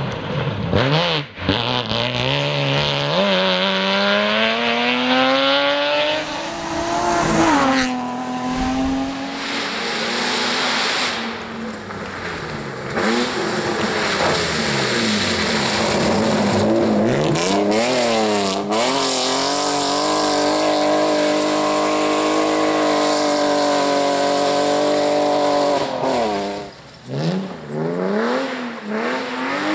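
BMW E30 3 Series rally cars driven hard one after another, engines climbing in pitch through the revs and dropping back at each gear change or lift. The sound breaks off briefly near the end before the next car comes in.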